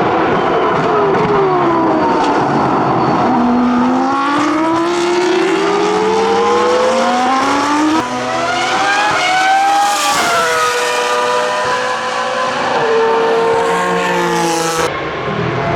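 Formula One V10 race car engines at high revs, several overlapping, their pitch climbing in long glides and then dropping as they accelerate and shift.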